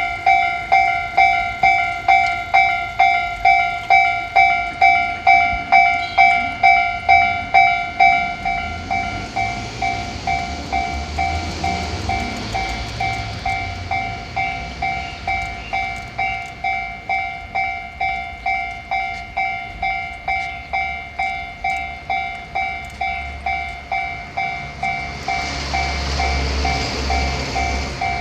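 Japanese railroad crossing alarm ringing its steady "kan-kan", about two strikes a second. A train passes through the crossing about nine seconds in, and another train rushes past near the end.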